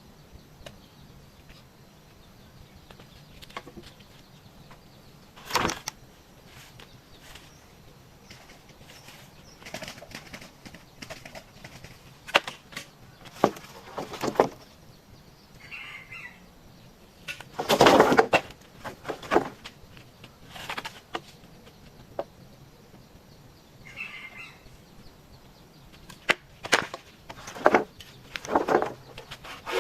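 Irregular rustling and knocking, about a dozen short bursts, the loudest lasting about a second a little past the middle, typical of bamboo being handled during coop building. Two brief high chirps come in between.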